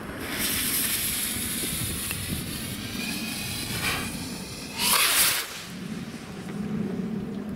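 Small Rubro Speed Rocket firework: a long hiss as its fuse is lit with a torch lighter and burns, then a short, louder whoosh about five seconds in as the rocket lifts off.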